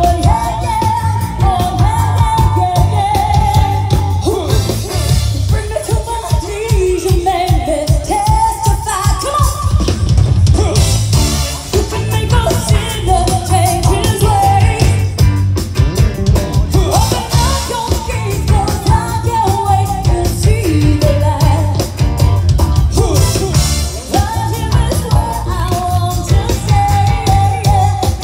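Live pop-rock band playing through a loud PA: a woman singing lead over a steady drum-kit beat, electric guitar and keyboards.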